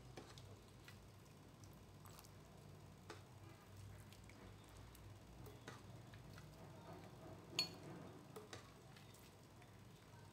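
Faint scattered clicks and clinks of a ladle and a glass bowl against a pressure cooker pot, with one sharper clink about three quarters of the way through, over near-silent room tone.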